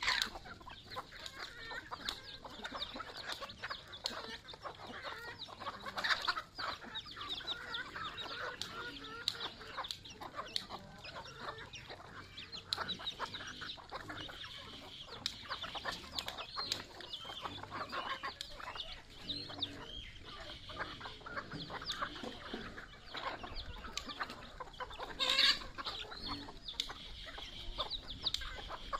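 A flock of native chickens clucking continuously while they peck scattered feed off a concrete floor, with many quick beak taps and higher chirping calls mixed in. One louder call comes near the end.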